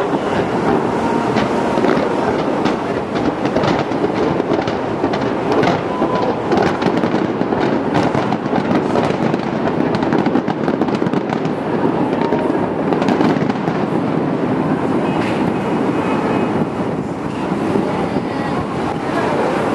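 Aerial fireworks going off in a continuous barrage: many shell bursts and crackles in quick succession, overlapping into a steady din.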